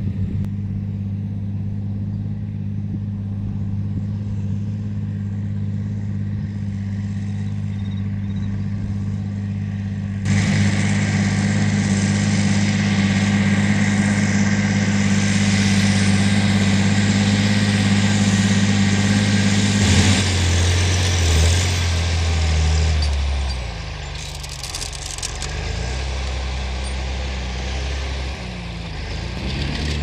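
John Deere 8520 tractor's six-cylinder diesel working steadily under load, pulling a five-furrow reversible plough. About ten seconds in the sound turns abruptly louder and brighter; about two-thirds of the way through the engine note drops, and near the end it rises and falls several times as the plough is lifted at the field edge.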